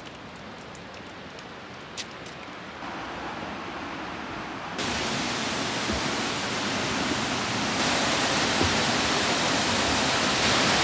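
Rushing water of the Nikobuchi waterfall pouring into its pool: a steady hiss that jumps louder in abrupt steps about three, five and eight seconds in. A single sharp click about two seconds in.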